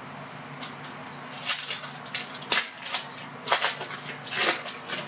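Panini Prizm basketball trading cards sliding and flicking against each other as they are flipped through by hand, a string of short irregular swishes and clicks that gets busier after about a second and a half.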